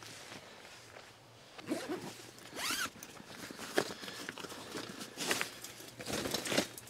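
Zipper on a fabric carry bag being pulled open in several short runs, with the bag's fabric rustling as it is handled.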